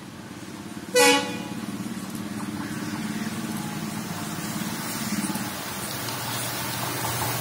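EMD diesel locomotive sounding one short horn blast about a second in, then its engine hum growing steadily louder as the train approaches at speed.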